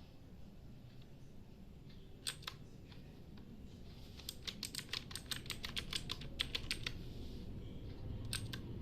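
Typing on a Gamen Titan Elite mechanical keyboard: a couple of keystrokes about two seconds in, then a quick run of key clicks lasting about three seconds, and two more keystrokes near the end.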